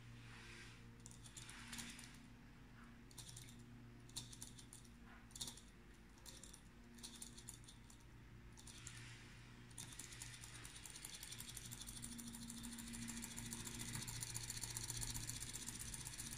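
Small alcohol-lamp Stirling engine: scattered clicks and knocks during the first half, then about ten seconds in a fast, continuous ticking rattle of the running engine sets in and grows louder as it speeds up.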